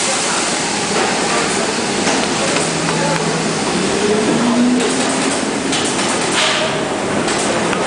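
Steady shoe-factory machinery noise, with a brief louder hiss about six and a half seconds in.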